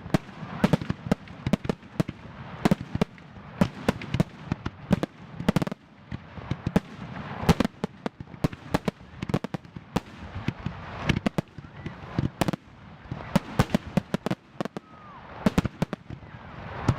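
Aerial firework shells bursting in rapid succession: a dense barrage of sharp bangs, several a second, with no let-up.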